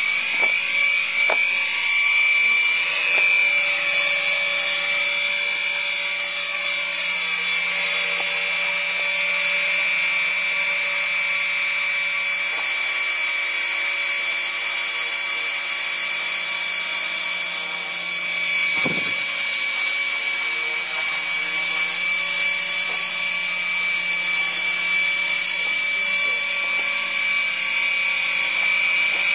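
Walkera 4F200LM electric radio-controlled scale helicopter flying close by: a steady, high-pitched whine of its electric motor and spinning rotor. The pitch wavers during the first few seconds as it moves about, and a brief low thud comes about two-thirds of the way through.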